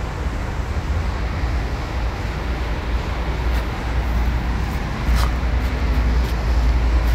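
Steady low vehicle rumble, with a short sharp click about five seconds in.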